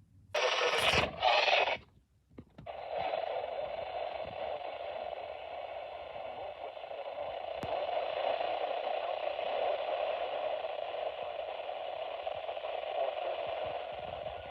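Two short loud noise bursts, then a steady hiss of radio static that carries on.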